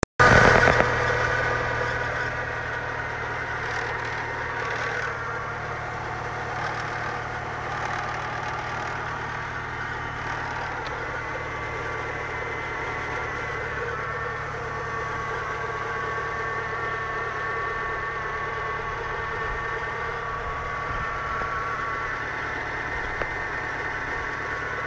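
Renault Clio 172 Mk2's 2.0-litre 16-valve four-cylinder engine idling cold, with a steady high-pitched whine over the idle from the engine bay. The noise appears only while the engine is cold and dies away after a minute or two of running. The sound is louder for about the first second.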